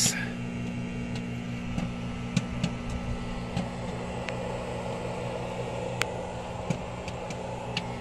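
Microwave oven running off a 1500-watt power inverter: a steady hum, with a few faint clicks now and then.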